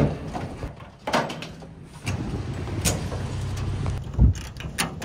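Knocks and footsteps on a steel car trailer's deck, a heavy thump about four seconds in, then ratchet-strap clicks near the end as a load is strapped down. A vehicle engine runs steadily underneath from about two seconds in.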